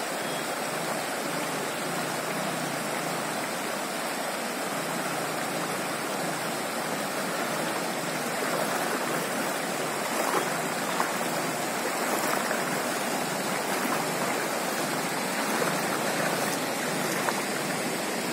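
Floodwater rushing in a strong current across a submerged road, a steady, even sound of fast-flowing water.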